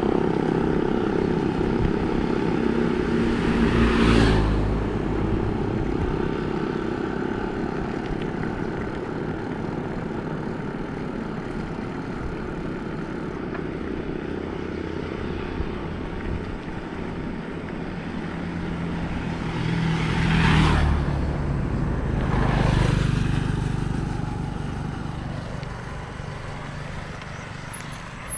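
Bicycle tyres rolling on a road, a steady rumble. Three times something louder passes close, rising and fading: once about four seconds in, then twice close together near the end.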